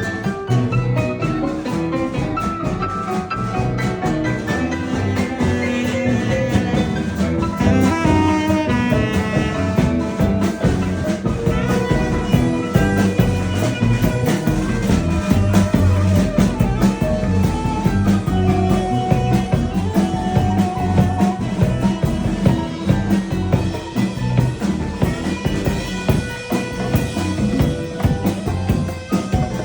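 Instrumental jam-session music in a jazz style: a drum kit keeps a steady beat under melody instruments playing throughout.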